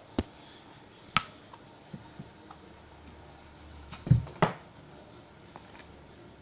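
Slime being handled, with a few sharp snapping pops, the loudest a pair about four seconds in, one with a dull thump under it.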